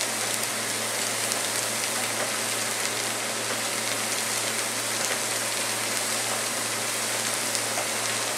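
Fideuà noodles and seafood sizzling steadily in a paella pan on a gas burner as the last of the stock cooks off, over a steady low hum.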